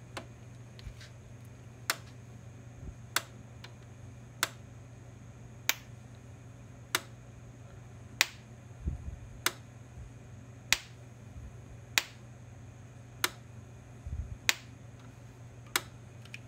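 Gallagher M4000 mains-powered electric fence energizer pulsing, one sharp click about every 1¼ seconds, each click one high-voltage output pulse. It is firing at a steady rate, the sign of a working unit, over a faint low steady hum.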